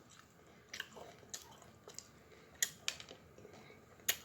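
Close-up chewing and biting of chicken wings: sharp, irregular wet crunches and mouth smacks, about five in all, the loudest near the end.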